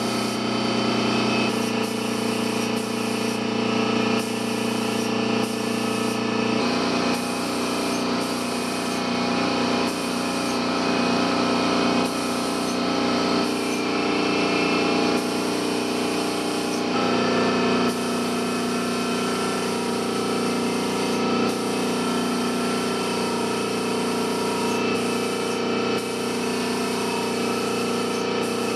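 Gravity-feed paint spray gun hissing in short spells, switched on and off many times as coats are laid on. Under it, a steady machine hum, likely the air compressor feeding the gun, shifts pitch a few times.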